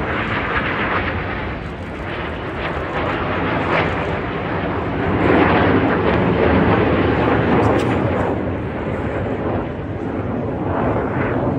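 Engine noise from a formation of Red Arrows BAE Hawk T1 jets flying past, a broad rushing noise that grows louder about five seconds in and eases off toward the end.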